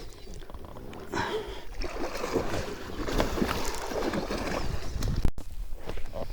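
Irregular splashing and knocking around a small fishing boat as a hooked pike is brought to the side and landed.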